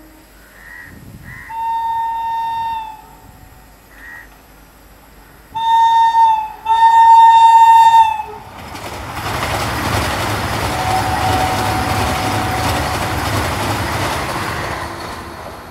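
Vande Bharat Express electric trainset sounding its horn: one blast about two seconds in, then two louder blasts around six and seven seconds in. The train then rushes through at high speed with a dense roar and low rumble for about seven seconds, fading near the end.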